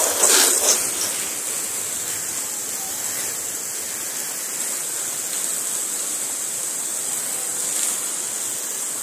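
Garden hose spraying a strong jet of water across a screened pool-cage roof: a steady rushing hiss of water.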